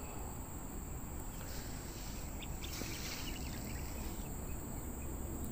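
Insects giving a steady, high-pitched drone, over a low rumble, with a few faint rustles near the middle.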